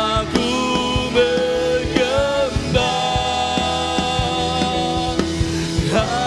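A live worship band playing a slow song: a sung melody with long held notes over keyboards and a drum kit.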